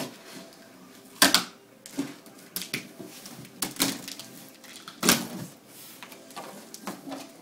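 A cardboard shipping box being opened: packing tape being cut and torn, and the box flaps scraping open, heard as a series of short, sharp rips and rustles. The loudest come about a second in and about five seconds in.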